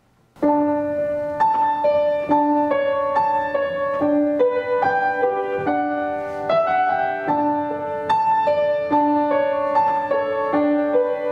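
Piano playing the gentle introduction to a worship song, a repeating figure of single notes over held chords. It starts about half a second in, after near silence.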